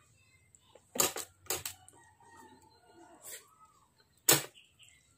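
Close-miked eating sounds: sharp mouth smacks and clicks while chewing rice and pork eaten by hand. There are four of them, two about a second in, a softer one past three seconds, and the loudest a little past four seconds.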